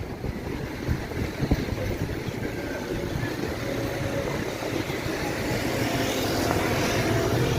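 Town-centre street ambience, dominated by a steady hum of car traffic.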